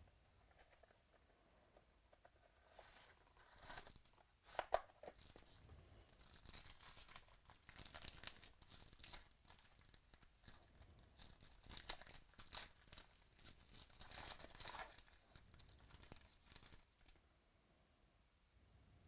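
Faint tearing and crinkling of plastic packaging as a football trading-card box or pack is opened, with irregular rustles and crackles and one sharper crackle about five seconds in.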